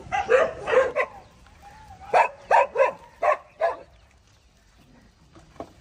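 Street dog barking in two runs of short barks: three at the start, then five quick barks about two seconds in.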